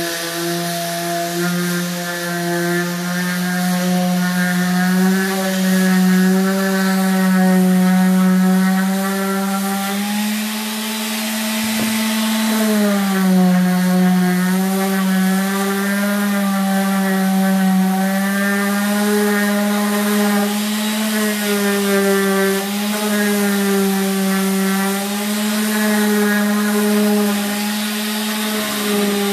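Electric random orbital sander with coarse sandpaper running steadily on a painted board, sanding dried paint off the raised grain. Its motor hum sags and recovers in pitch as it is pressed into the wood, over a constant rubbing hiss.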